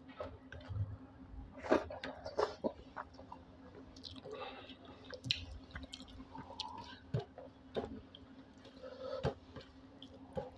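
Fingers mashing and mixing rice with egg curry on a steel plate: soft wet squishing and scattered sharp clicks of fingers against the metal, with some chewing.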